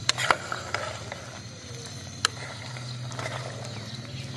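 Steel ladle stirring beef korma in a metal pot: a few sharp clinks against the pot, loudest near the start and once about two seconds in, with faint scraping between, over a steady low hum.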